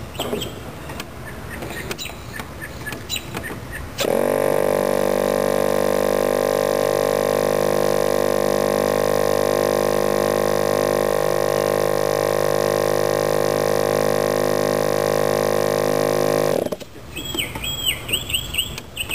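12-volt electric starter spinning a .46-size model-airplane glow engine over at a steady pitch. It kicks in suddenly about four seconds in and cuts off about twelve seconds later, and the engine has not caught. Light clicks of handling come before it.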